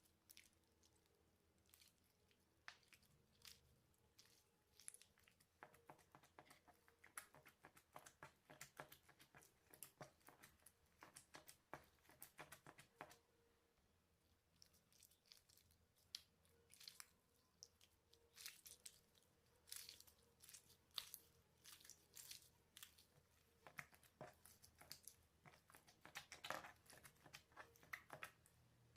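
Slime being handled and squished, making rapid small sticky clicks and crackles. They are sparse at first, come thick and fast from about six seconds in, ease off briefly in the middle, then pick up again.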